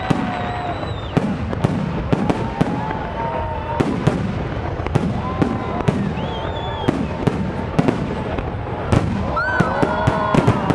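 Aerial fireworks shells bursting overhead: a rapid, irregular run of sharp bangs and crackles that comes thickest near the end.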